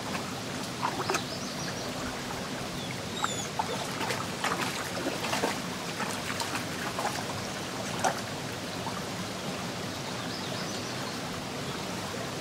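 Shallow creek running steadily over gravel, with an Australian cattle dog wading and splashing in it as it noses for a submerged rock; sharp splashes come scattered through the first eight seconds or so.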